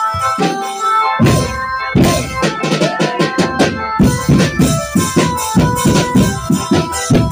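Drum band playing a loud DJ-style dance song: a steady melody, with heavy drums coming in about a second in and settling into a fast, even beat.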